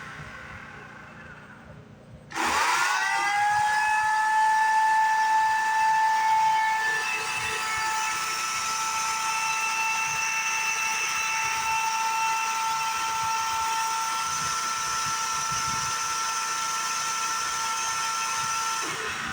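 Greenworks corded electric chainsaw motor starting about two seconds in. Its whine rises fast to a steady high pitch and it runs at full speed without cutting, then stops near the end.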